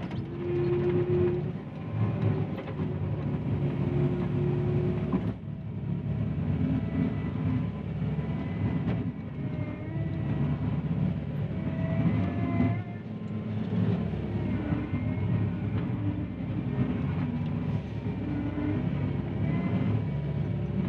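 John Deere 333E compact track loader's diesel engine working under load as the machine manoeuvres, with wavering high squeals and whines over the engine noise.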